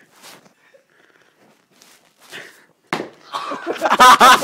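A sudden slap-like hit about three seconds in after near-quiet, followed at once by loud vocal outbursts, men crying out and laughing during a scuffle.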